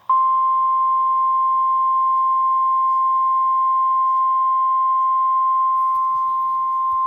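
NOAA Weather Radio warning alarm tone, a single steady 1050 Hz tone held unbroken, signalling that a warning broadcast follows, here a severe thunderstorm warning.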